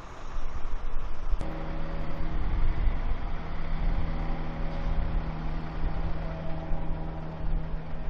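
Low outdoor traffic rumble. About a second and a half in, a vehicle engine starts to be heard idling with a steady, even hum that holds to the end.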